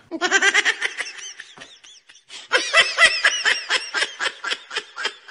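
High-pitched giggling laughter in two runs of quick pulses, the second starting about halfway through.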